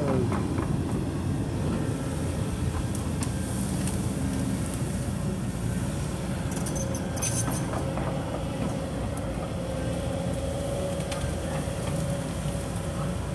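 Kobelco SK140 crawler excavator's diesel engine running steadily under load as its bucket works through cleared brush and soil, with a few sharp knocks and cracks about three, four and seven seconds in. A faint steady whine comes in during the second half.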